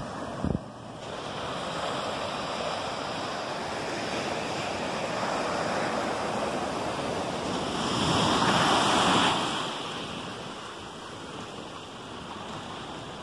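Sea surf breaking on a sandy beach: a steady wash of waves, with one wave crashing louder about eight seconds in. A brief knock sounds near the start.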